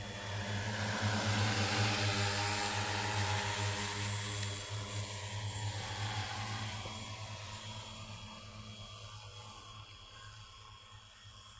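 Multirotor agricultural spraying drone flying past, its rotors humming. The hum swells in the first couple of seconds, drops slightly in pitch, then fades steadily as the drone flies away.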